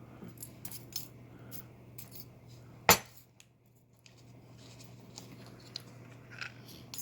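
Small metal clicks and taps as lock-picking tools and a thin metal shim are handled, with one sharp metallic click about three seconds in, over a faint steady hum.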